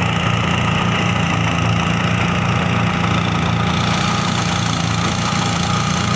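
New diesel engine on a rice threshing machine, running steadily at an even speed.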